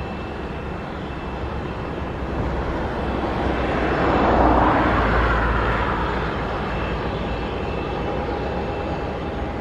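Twin-engine Airbus A320-family jet airliner on final approach, its engines giving a steady rushing drone with a faint high whine. The drone swells to a peak about halfway through and then eases slightly.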